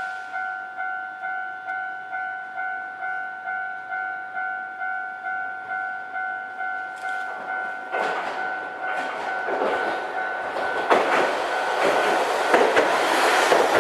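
Japanese level-crossing warning signal ringing its pulsing two-tone clang about twice a second. From about eight seconds in, a Hankai Tramway streetcar approaches and runs over the crossing, its rumble growing loudest near the end.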